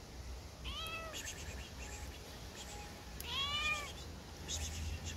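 A young cat meowing twice in distress while its claws are being trimmed: a short call about a second in, then a louder, longer one just past three seconds.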